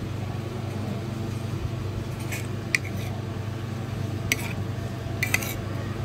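Metal spoon clinking and scraping against a ceramic plate, with a handful of sharp clinks: one around the middle, one past four seconds and two close together near the end. A steady low hum runs underneath.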